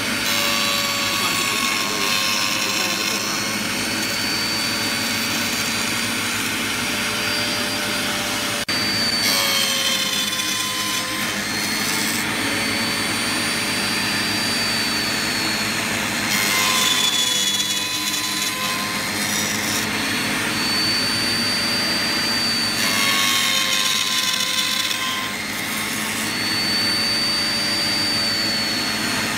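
Table-mounted router running with a steady high whine while a row of notches is cut into a thin hardwood strip. Three times the whine sags a little in pitch under a burst of cutting noise as the bit bites into the wood.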